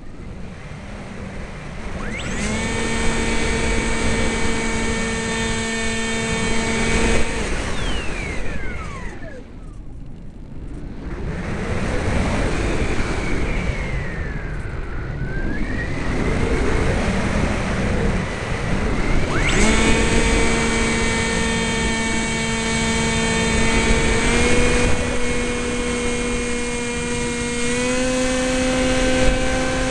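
Electric motor and propeller of a Sky Surfer RC glider, heard from the onboard spy camera: a steady whine that cuts out after about five seconds, leaving wind rush while the plane glides. The whine comes back about two-thirds of the way in and steps up in pitch twice as the throttle is opened.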